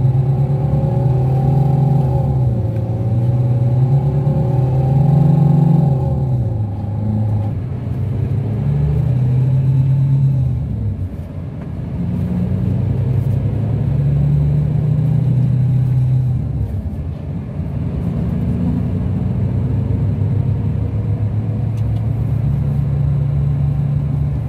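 Scania K360 coach's rear-mounted diesel engine, heard from inside the cabin while the coach drives. The engine note climbs and then drops back about three times as the automatic gearbox shifts up.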